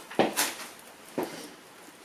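Three short, sharp knocks and clicks from PC parts being handled and set down during assembly: two close together at the start and one about a second in.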